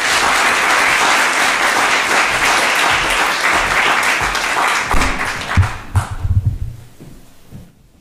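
Audience applauding, then dying away about six seconds in, with a few low knocks as it fades.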